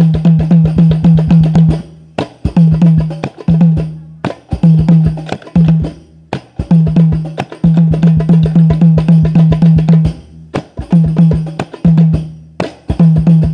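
Hadroh frame-drum ensemble playing fast rhythmic patterns in a sound check: deep, tuned bass-drum notes under sharper, slapping frame-drum strokes. It plays in phrases of about two seconds, each broken by a brief pause.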